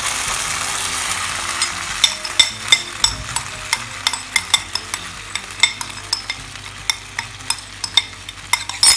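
Mushroom sauce sizzling in hot oil in a non-stick frying pan, just after the sauce paste has gone in. A steady sizzle at first settles after about a second and a half into scattered sharp pops and crackles as the sauce bubbles, with a louder burst near the end.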